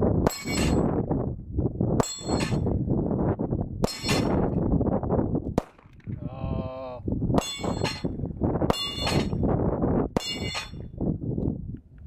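Seven .45 ACP shots from a Sig Sauer P220 pistol, about one every one and a half to two seconds. Each is followed by the ring of a steel dueling-tree paddle being hit and swinging over, and after the fourth shot a paddle rings on longer with a wavering tone. Wind buffets the microphone throughout.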